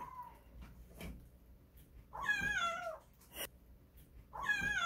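Kitten meowing to call its mother: two long, high calls about two seconds apart, each falling in pitch at the end, after the tail of an earlier call right at the start.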